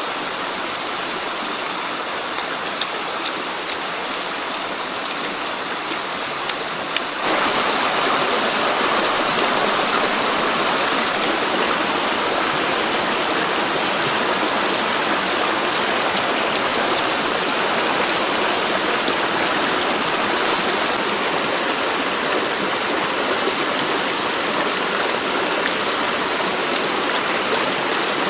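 Steady rush of river water that jumps suddenly louder about seven seconds in, with a few faint ticks before the jump.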